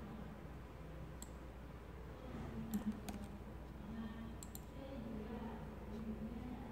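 A few soft computer mouse clicks, spaced a second or more apart with two in quick succession in the middle, over faint room hum.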